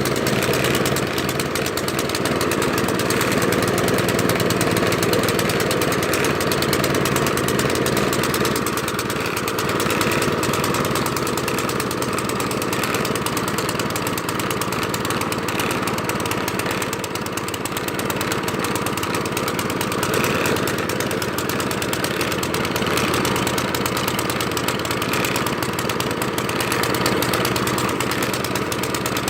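Gas snowblower engine running steadily but not sounding right: it is starving for fuel, low on gas, and the owner puts the sound down to the choke being left off.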